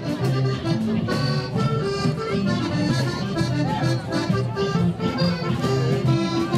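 Accordion music: a tune of held notes over a low bass line.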